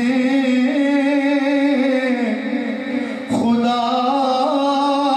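A man singing a manqabat, a devotional Urdu poem, unaccompanied in long held notes. One phrase fades out a little past two seconds in, and a second phrase begins about a second later.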